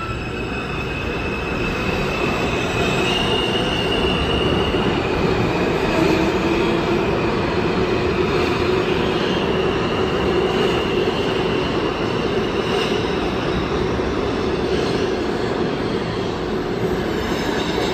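An R160 subway train pulls out and picks up speed past the platform. The electric traction motors give a high whine that steps up in pitch in the first few seconds, over the steady loud running noise of steel wheels on the rails.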